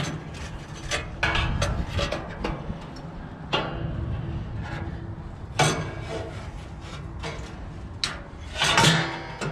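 Irregular knocks, rubbing and scraping of parts being handled inside a gas grill, with a louder scraping burst near the end.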